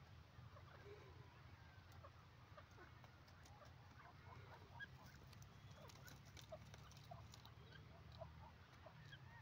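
Faint, scattered short soft calls of a grey francolin, with a few light clicks, over a low steady rumble.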